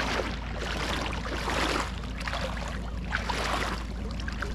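Feet wading through shallow river water, splashing in repeated swells about once a second.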